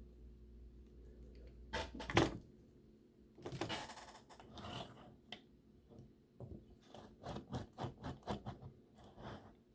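Light knocks and clicks of small parts and tools being handled on a workbench during work on a model locomotive's drive truck. The loudest knocks come about two seconds in, followed by a run of short clicks; a low hum stops at about the same moment as those knocks.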